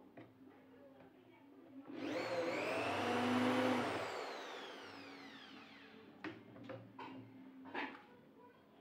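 An electric motor, like a power tool's, spins up quickly, runs briefly and then winds down slowly, its pitch falling. A few sharp knocks follow near the end.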